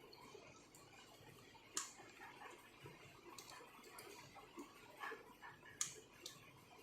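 Faint, irregular small clicks and taps from tools and parts being handled on a circuit board during soldering, about six in all, the sharpest about six seconds in, over quiet room tone.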